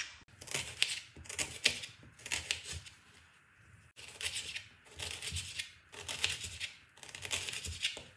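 Knife chopping an onion on a cutting board, in runs of quick strokes with a short pause about halfway through.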